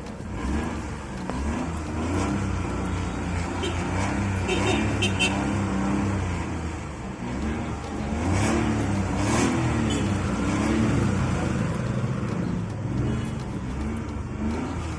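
Engine of a vintage Maruti Suzuki car running after a start, its pitch rising and falling as the revs swing up and down.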